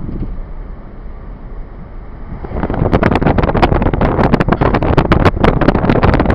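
Car driving, its low road rumble steady at first; about two and a half seconds in, a loud crackling rush full of sharp clicks sets in and keeps going.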